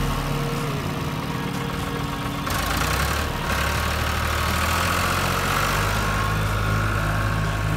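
John Deere 301 tractor engine running, its note stepping up about three and a half seconds in and again a little past halfway.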